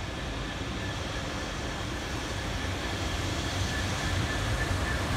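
An approaching train, its low rumble growing steadily louder, with a thin high steady tone that strengthens near the end.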